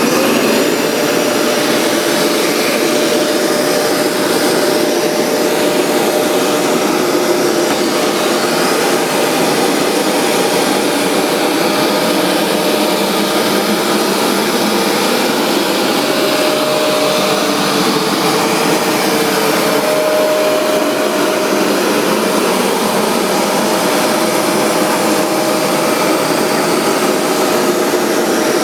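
Hoover MaxExtract 60 carpet cleaner running steadily: a loud, even suction-motor rush with a faint steady tone that fades in and out.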